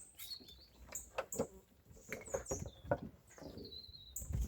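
Scattered light knocks and scuffles, with short, high chirps of small birds in between, one rising chirp near the end.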